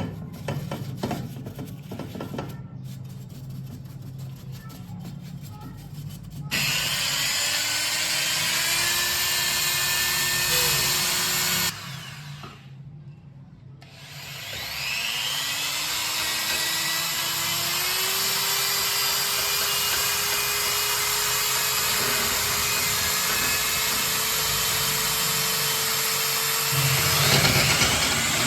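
Electric power tool spinning up about six seconds in and running with a hiss, shutting off briefly, then spinning up again and running steadily, its pitch climbing as it comes up to speed.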